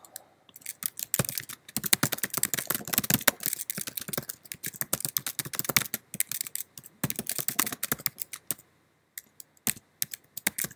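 Fast typing on a computer keyboard: a dense run of key clicks. It pauses briefly about eight and a half seconds in, then a few more keystrokes follow.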